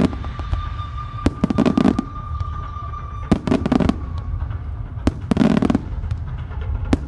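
Aerial fireworks shells bursting: four clusters of sharp bangs and crackling, one every second and a half to two seconds, each with a low rumble under it.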